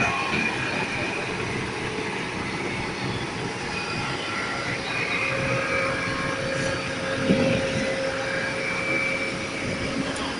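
Heavy vehicle engines running steadily, with a faint steady whine and a brief knock about seven seconds in.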